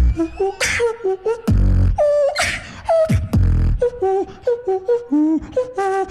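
Live beatboxing into a handheld stage microphone: deep bass kicks and hissy snare hits, with short pitched vocal tones in between.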